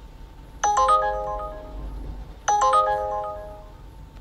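Uber Driver app trip-request alert ringing on a phone. A quick cluster of bright chime notes sounds twice, about two seconds apart, each dying away.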